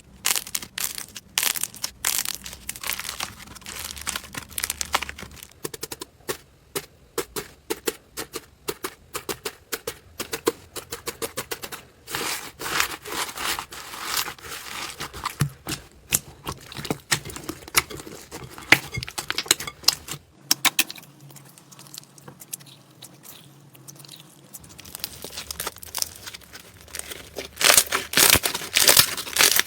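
Slime being handled and squished: a dense run of crisp crackles and small pops, thinning out for a few seconds and growing louder and denser near the end.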